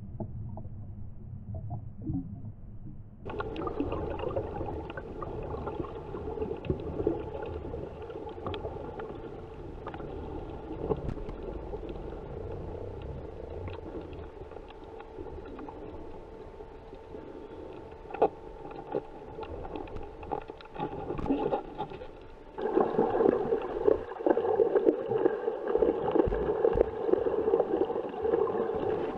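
Muffled underwater sound heard through an action-camera housing: rushing, gurgling water under a steady hum of several tones, with scattered clicks. It turns abruptly fuller about three seconds in and gets a step louder near the end.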